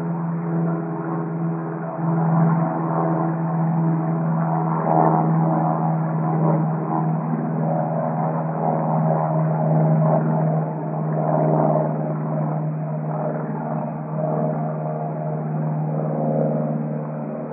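Distant airplane flying by: a steady, continuous droning hum with a wavering upper layer. It sounds thin and band-limited, because the recording has been filtered to remove unwanted frequencies.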